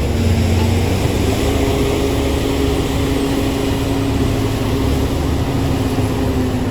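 Bulldozer's diesel engine running steadily, a heavy low rumble with a steady engine tone that rises slightly in pitch about a second in.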